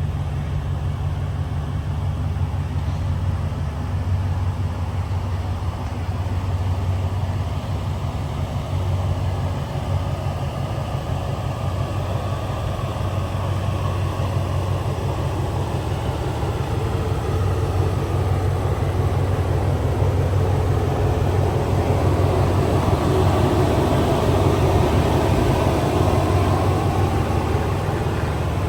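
Ford Raptor R's supercharged 5.2-litre V8 idling with a steady low rumble, growing a little louder through the second half.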